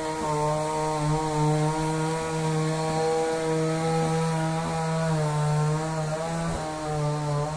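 Chainsaw engine running steadily, its pitch wavering and dipping briefly a few times.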